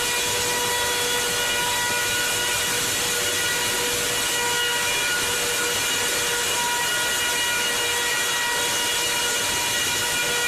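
A sawmill's power saw cutting through wood: a steady high-pitched whine over a loud, even rushing hiss, unchanged throughout.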